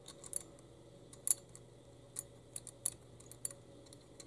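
A 2 mm Allen key working a small screw in a plastic security-camera housing: faint, irregular little clicks and ticks, the sharpest about a second in, over a steady low hum.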